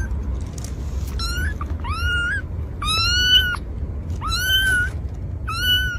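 A cat meowing repeatedly: about five high-pitched meows in a row, each rising and then held for about half a second, the middle one the longest. A steady low rumble runs underneath.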